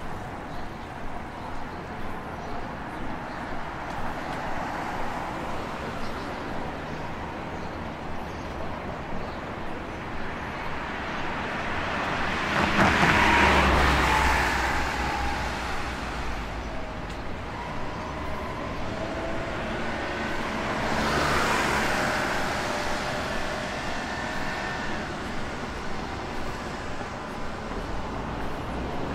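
City road traffic: a steady hum of cars, with one vehicle passing loudly about halfway through and another a little later.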